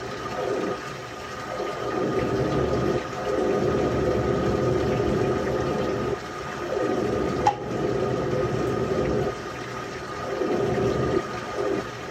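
LG washing machine with water rushing and sloshing in uneven surges, over a faint steady hum, with one brief click about halfway through.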